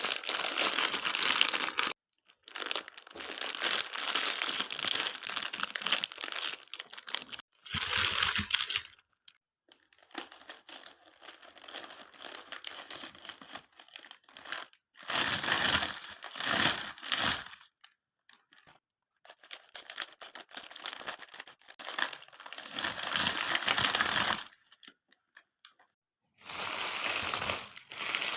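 KitKat chocolate wrappers and packaging crinkling and tearing as they are opened by hand, in bursts of a few seconds with short pauses between and a softer stretch near the middle.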